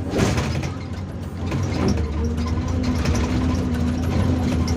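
Hyundai R480LC-9S hydraulic excavator's diesel engine running steadily, with clanking and rattling from the bucket and machine working in blasted limestone. The loudest clatter comes just after the start.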